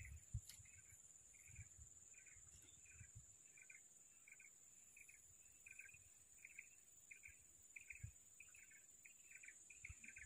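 Faint insect chorus: a steady high-pitched buzz with a short chirp repeating about twice a second. A few soft low knocks can also be heard.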